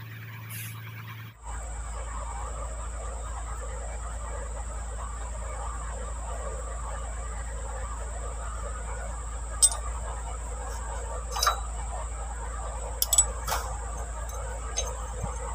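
Several short sharp metal clicks and clinks as tractor brake linkage parts are worked loose by hand, most in the second half, over a steady low hum and a thin high whine that start about a second in.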